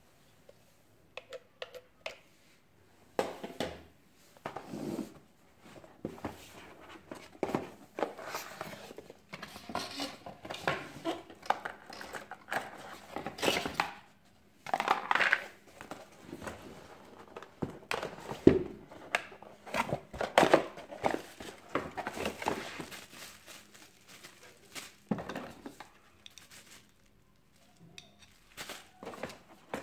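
Cardboard box and packaging inserts being handled and lifted out: irregular rustling, scraping and knocks, quieter near the end.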